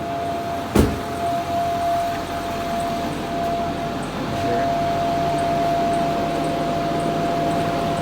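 2008 Ford 6.4 Power Stroke diesel running with a steady humming tone over the engine sound, the hum briefly dropping out about four seconds in; a single sharp knock comes about a second in. The diesel mechanic puts the hum down to the recently replaced fuel cooler.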